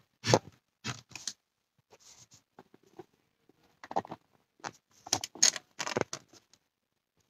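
Handling noise from the phone filming being repositioned on its mount: irregular knocks, clicks and scrapes, about a dozen with short gaps between, loudest around four to six seconds in.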